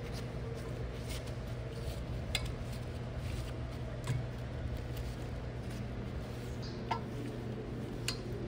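A few light metallic clicks and clinks as pump fittings and connector nuts are handled and fitted onto a boiler feed pump's heat exchanger, over a steady low hum.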